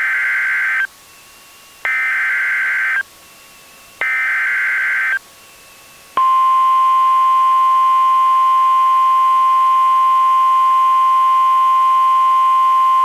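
Emergency Alert System tones on NOAA Weather Radio: three warbling SAME digital header bursts of about a second each, then, about six seconds in, the long steady 1050 Hz warning alarm tone begins. They signal that a warning is about to be broadcast, here a severe thunderstorm warning.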